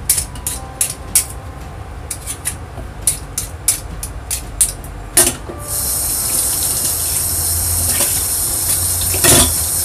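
Hand vegetable peeler scraping down a carrot in quick repeated strokes, then a kitchen tap turned on and water running steadily from about six seconds in.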